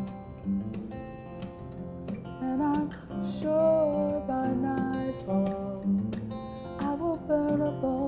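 Acoustic guitar strumming chords in a slow song. From about two and a half seconds in, a woman's voice sings a melody over it.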